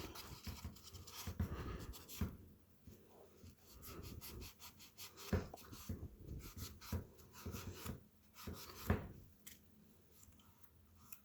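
Light handling sounds: scattered, irregular clicks and taps with some rubbing, and a couple of sharper knocks about five and nine seconds in.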